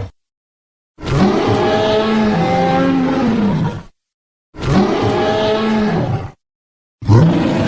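Stock dinosaur roar sound effects: three separate roars, each a couple of seconds long with a pitch that rises and falls, separated by dead silence. The last one starts near the end.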